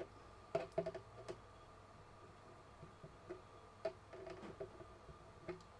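Faint, irregular clicks and ticks of pliers on a small metal airline fitting as it is turned and screwed into the rifle's side.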